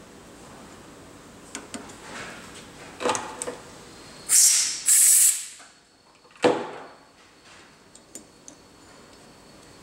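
Light metallic clicks of a tap and tap handle being worked in an aluminium carburetor body. About halfway through come two short, loud hissing blasts of compressed air clearing the cutting chips from the hole, then a single sharp knock.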